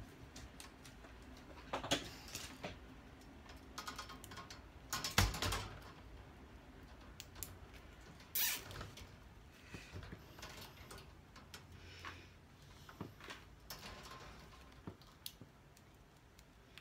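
Steel wire lattice panels and nylon cable ties being handled: scattered light clicks and rattles of metal mesh, with a louder clatter about five seconds in and another sharp knock about three seconds later.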